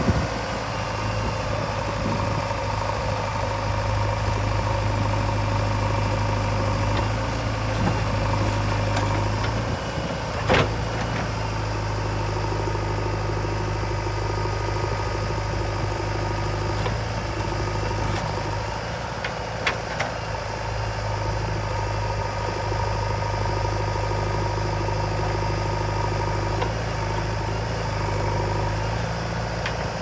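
Diesel engines of a JCB 3DX backhoe loader and a Mahindra tractor running steadily while the backhoe works, with one sharp knock about ten seconds in and two short ticks near twenty seconds.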